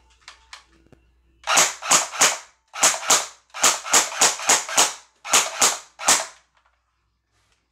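Electric HK-style airsoft rifle firing single shots on semi-auto: about fourteen sharp pops in short strings of two to five, roughly three a second, starting about a second and a half in.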